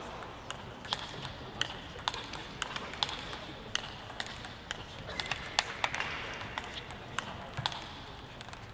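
Table tennis ball being played back and forth in a rally, its hits on the bats and bounces on the table making quick, sharp clicks about twice a second.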